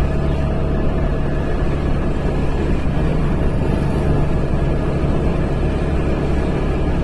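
Steady, loud low engine drone of a moving vehicle, with faint steady whining tones above it and no change in pitch.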